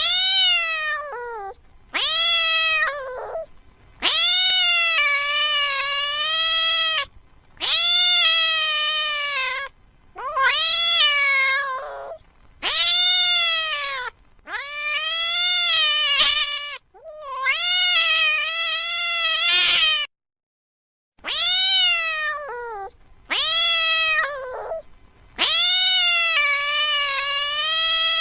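A mother cat meowing loudly and repeatedly in long, drawn-out calls, about a dozen in a row, calling for her missing kittens.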